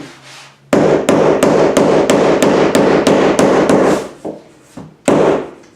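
Rapid hammer taps on a LifeProof vinyl floor plank, knocking it down so its click-lock edge seats: about four taps a second for some three seconds, then one more blow near the end.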